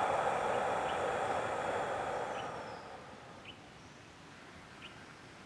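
A long, slow, deep exhalation through the mouth, a breathy rush that fades out over about three seconds, as part of a deep-breathing exercise. After it there are only a few faint bird chirps.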